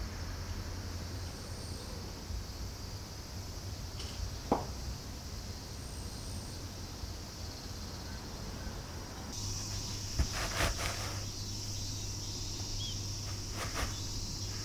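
Quiet room tone: a steady low hum and a faint steady high-pitched drone, with a few soft clicks and knocks, one about a third of the way in and a small cluster later on.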